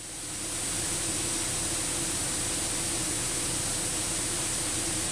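Steady static hiss on the cockpit radio and intercom audio, fading up over the first second and then holding level, with a faint steady hum underneath.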